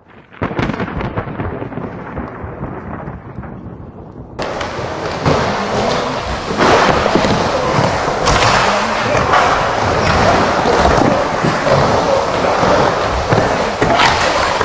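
Skateboard wheels rolling in a bowl: a steady rumbling roar with scattered knocks. About four seconds in, the sound turns louder and brighter.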